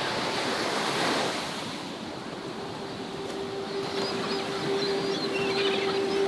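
Ocean surf washing on a beach, with some wind. A steady low hum comes in about two and a half seconds in, and faint high chirping calls are heard in the second half.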